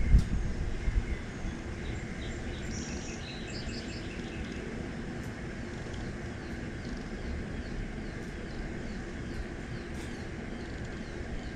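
Steady low rumble of distant traffic with small birds chirping repeatedly. A sharp thump just after the start, followed by about a second of low knocking, is the loudest moment.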